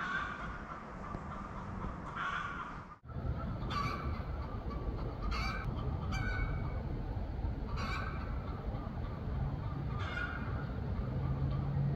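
A bird calling over and over, about seven short calls spaced one and a half to two seconds apart, over a steady low rumble. The sound cuts out for an instant about three seconds in.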